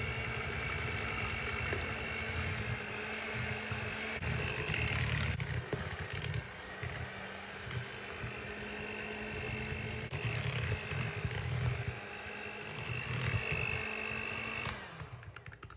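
Electric hand mixer running steadily, its beaters churning eggs into creamed margarine and sugar in a glass bowl. The motor whine holds steady over a low rumble that rises and falls, and it is switched off near the end.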